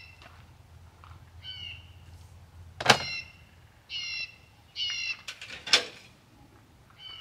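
A bird giving short, level-pitched calls, about four of them, over sharp knocks and clatter of gear being handled at a pickup's tailgate; the loudest knock comes about three seconds in.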